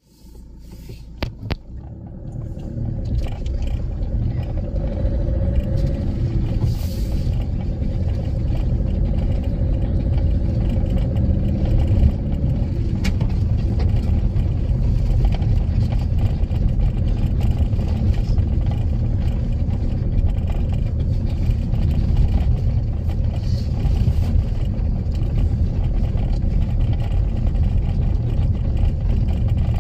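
Car driving, heard from inside the cabin: a steady low rumble of engine and tyres on the road that builds up over the first few seconds. Two clicks about a second in.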